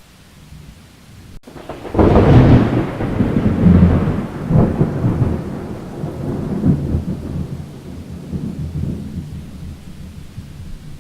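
A thunderclap in a rainstorm: a sudden loud crack about two seconds in that rolls on in a few swells and fades slowly over the rest of the stretch, with steady rain noise underneath.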